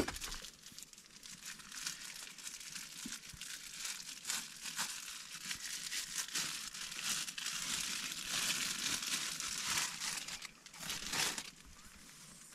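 Plastic packaging crinkling and rustling as it is handled and pulled open, in irregular crackly bursts, with a sharp click at the very start.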